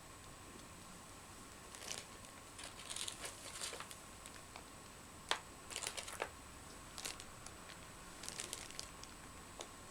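Scattered rustles and small clicks of seashells being handled and pressed onto glue-covered gauze on a bottle, in irregular clusters with one sharper click about halfway through.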